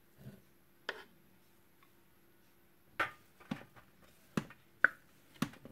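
A white plastic spatula knocking and scraping against a food processor's clear bowl and a stainless steel tray while shredded vegetarian meat floss is scooped out: a couple of soft knocks, then a run of five sharper taps from about three seconds in.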